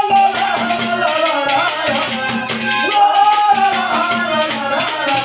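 Instrumental interlude of Haryanvi ragni folk music: a harmonium plays a held, winding melody over a hand drum and a rattling shaker keeping a steady, fast beat.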